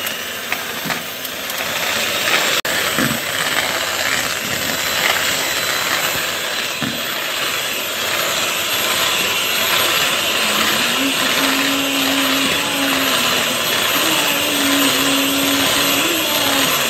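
Electric hand mixer with twin wire beaters running steadily, its motor whirring as it whisks eggs and vanilla essence in a plastic bowl.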